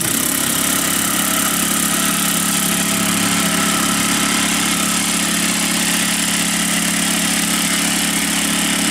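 Small engine of a portable water pump starting up and then running steadily and loudly.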